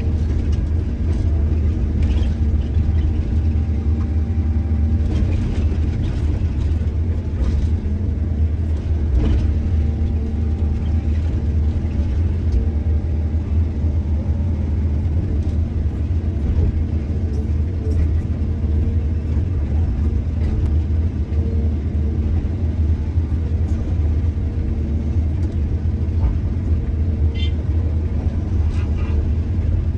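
Heavy excavator's diesel engine running steadily with a deep low rumble, with a few faint knocks and clanks.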